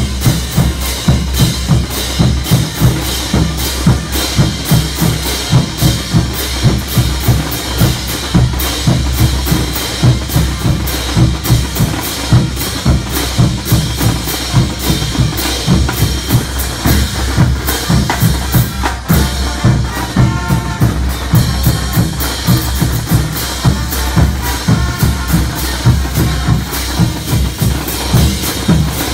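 Marching percussion band of snare drums, bass drums and hand cymbals playing a fast, steady beat.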